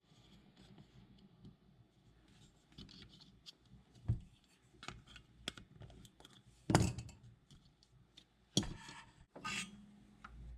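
Handling noise from work on a small electronic device: scattered light clicks, taps and rubbing, with four louder sharp knocks spread through it.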